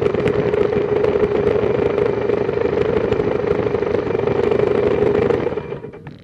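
BMW F650GS motorcycle engine running steadily through its stock exhaust, with many small knocks over it. Near the end the engine sound falls away.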